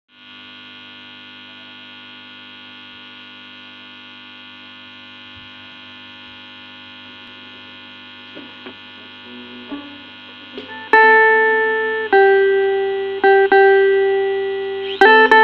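Home-made electric Indian banjo (a keyed string zither, bulbul tarang style) played through an amplifier: a steady amplifier hum with a few faint string touches, then from about eleven seconds in, loud struck notes that ring and fade, changing pitch as the keys are pressed. Near the end, fast repeated strumming begins.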